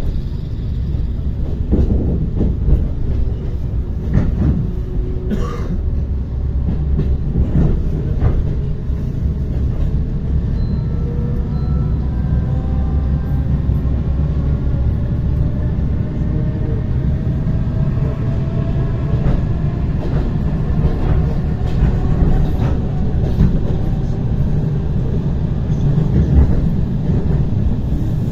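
ER9T electric multiple unit under way, with a steady low rumble of wheels on rail and a few sharp knocks in the first several seconds. Through the middle a faint whine rises slowly in pitch as the train gathers speed.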